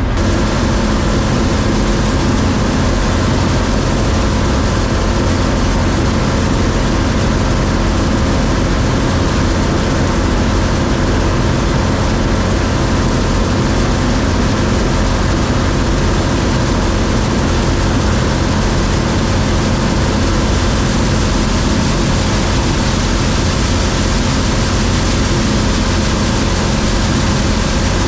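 John Deere 3300 combine running steadily while harvesting corn: a constant, loud drone of the engine and threshing machinery, with no change in pace.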